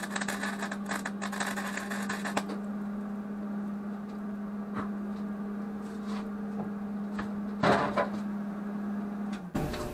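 Arc welding on a Generac generator's air filter housing: the arc crackles and spits, then stops about two and a half seconds in. A steady low hum then carries on, with a few scattered clicks and a louder clatter near the end, and the hum cuts off just before the end.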